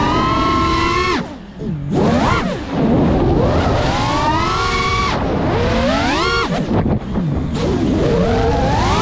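GEPRC Mark 5 FPV quadcopter's motors and propellers whining, the pitch swooping up and down with the throttle. The whine drops away briefly about a second and a half in, then climbs sharply again, with more swoops near the end.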